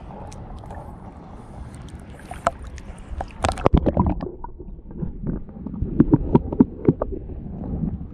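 Muffled underwater sound of shallow sea water heard from a submerged camera, a steady low rumble, with scattered clicks and knocks as a hand digs into the sandy seabed. The knocks come mostly in the second half.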